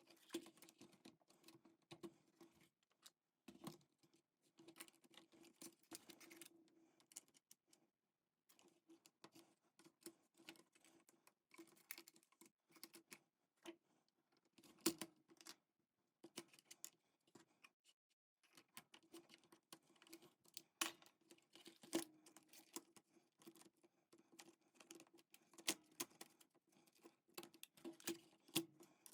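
Faint, scattered clicks and knocks of plastic keyboard case parts being handled and fitted together while an IBM Model M keyboard is reassembled.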